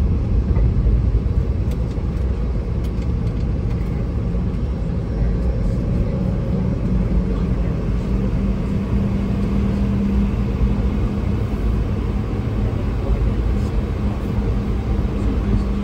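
Cabin noise of a Boeing 717 taxiing: a steady low rumble from its rear-mounted Rolls-Royce BR715 turbofan engines. A steady hum comes in about halfway through and grows stronger.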